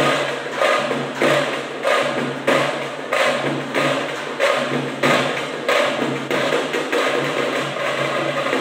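Hand-held drum beaten with sticks in a steady festival rhythm, a strong beat about every two-thirds of a second with lighter strokes between. The accents become less distinct near the end.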